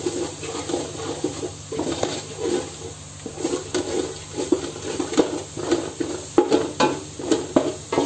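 Wheat flour being roasted in oil in an aluminium pot, stirred and scraped with a wooden spoon in repeated strokes. From about five seconds in, the spoon knocks more sharply against the pot.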